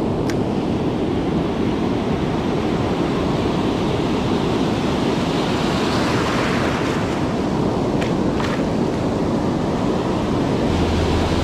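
Ocean surf washing in steadily, with wind on the microphone; a wave swells up and breaks about six seconds in.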